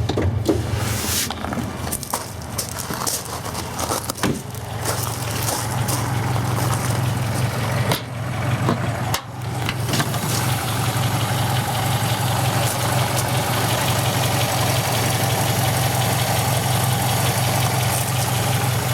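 A 1953 Jowett Javelin's flat-four engine idling, with some clicks and knocks in the first half before it settles into a steady idle.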